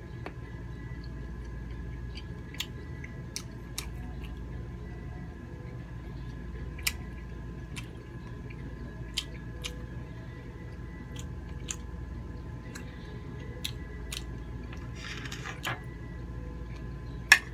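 Close-up eating sounds: wet chewing of grilled squid, with scattered sharp clicks of the knife and fork against the plate, the loudest just before the end, over a steady background hum.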